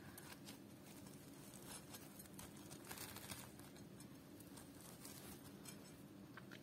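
Near silence with faint scattered crackles and light rustling as fingers handle crisp fried spinach pakoras, over a low steady hum.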